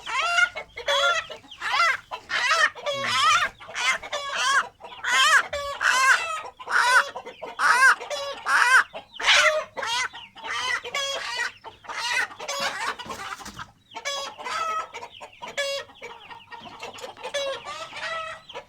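Ayam Cemani chickens clucking and squawking in a fast run of short, repeated calls, often overlapping. The calls are loudest and most crowded in the first half and thin out after about fourteen seconds.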